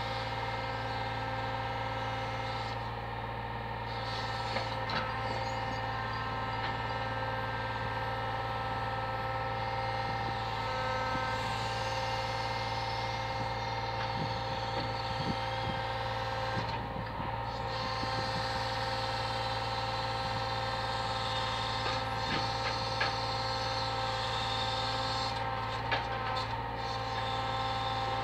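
Brick lorry's engine running steadily to drive its truck-mounted crane, with a constant hydraulic whine while the brick grab is swung and lowered. A few light knocks from the crane and grab.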